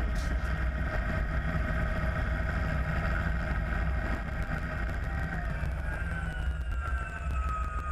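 Helicopter running on the ground: the low beat of the rotor under a steady engine whine, the whine starting to fall in pitch about five and a half seconds in.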